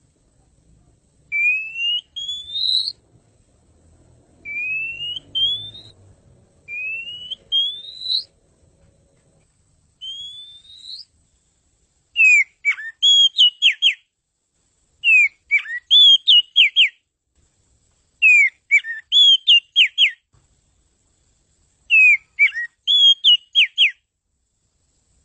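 Oriental magpie-robin (kacer) singing. First come five clear rising whistles, each a second or so long, at steady intervals. From about halfway in, these give way to four quick phrases of sharp, sliding and chattering notes, one roughly every three seconds.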